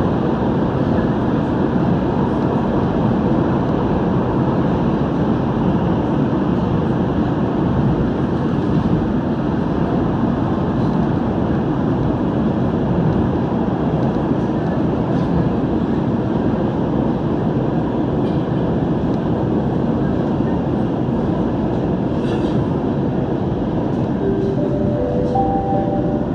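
SBST C951 (Bombardier Movia) Downtown Line metro train running through a tunnel, heard from inside the front car: a steady, dense rumble of wheels and running gear. Near the end a few short tones sound one after another at different pitches as the train nears the station.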